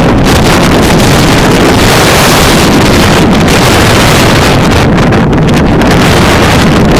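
Loud, steady storm wind buffeting the microphone.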